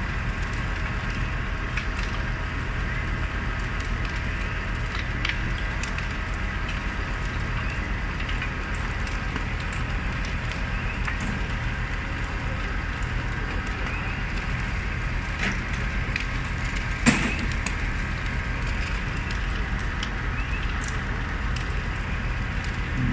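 Flames of a burning apartment crackling, with scattered snaps and pops over a steady low rumble, and one sharp, loud crack about seventeen seconds in.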